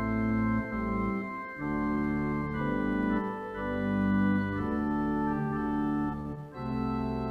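Organ playing slow, sustained chords that change every second or so.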